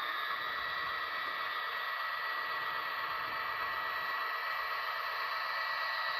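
HO scale model train running on the layout: a steady whirring hiss of motors and wheels on track, with a thin high steady whine.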